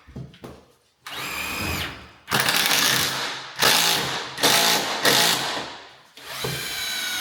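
Power drill driving self-tapping screws into cement board: a short run of motor whine, then several loud bursts as screws are driven in, and another whine near the end.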